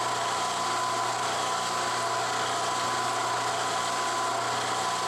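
Benchtop mill-drill's spindle motor and gear head running steadily, with a constant low hum and a steady higher whine over a hiss.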